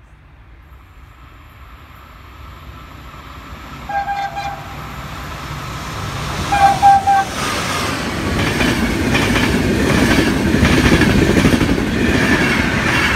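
Electric passenger train approaching and passing close: two short horn blasts about four and seven seconds in, the second louder, then a growing rumble of wheels with rhythmic clicking over the rail joints as the coaches go by.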